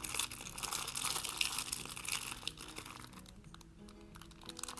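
Food packaging crinkling and rustling for about three and a half seconds as it is handled and opened, over soft background music.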